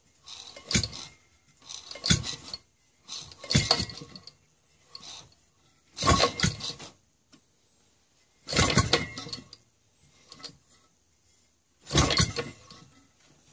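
Maytag Model 72 two-stroke engine being turned over by hand at its flywheel, again and again: about seven short bursts of metallic clattering and clinking, one every second or two, without the engine firing. The men working on it put the failure to start down to the engine not drawing fuel.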